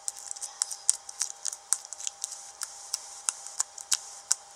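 Slime with foam beads being squeezed and played with by hand, giving irregular small clicks and pops several times a second, over a faint steady hum.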